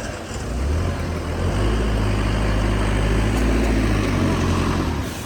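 Workshop machinery running with a steady low hum. The hum comes in about half a second in and drops away near the end, over general factory noise.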